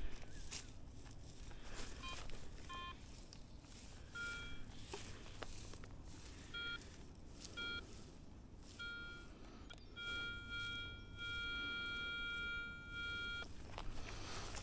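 Metal detector sounding target tones: two short lower beeps, then a higher tone in short beeps from about four seconds in, ending in a long steady tone of some three seconds. Rustling and scuffing run underneath.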